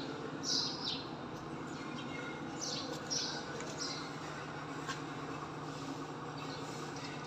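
Fiat 110 tractor's six-cylinder diesel engine idling steadily, with birds chirping several times in the first four seconds.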